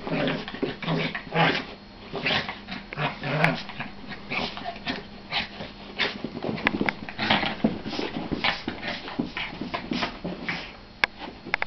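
Two small dogs play-fighting, making rapid short growls and whines in quick bursts throughout.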